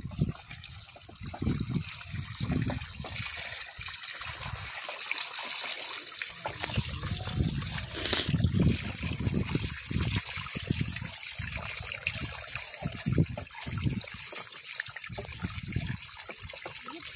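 Water running and trickling through a channel cut in a mud bank, flowing past mesh fish traps, with irregular low splashing and bumping.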